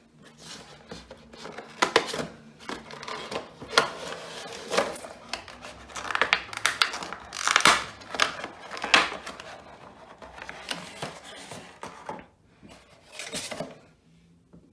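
A clear plastic packaging insert and a cardboard box being handled as a boxed vinyl figure is unpacked: irregular crinkling, rustling and light clicks, busiest around the middle.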